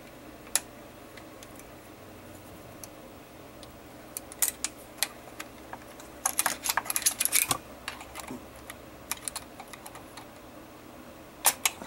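Small clicks and taps of a hook tool working against the valve body rod and linkage of a 48RE automatic transmission. They come in scattered clusters, densest in a quick run just past the middle, with a pair of sharper clicks near the end.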